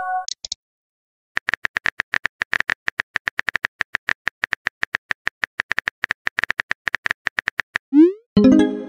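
Rapid, even keyboard-tap clicks of a texting app's typing sound effect as a message is typed out letter by letter. A short electronic chime sounds at the start, and near the end a quick rising swoosh and a louder chime mark the message being sent.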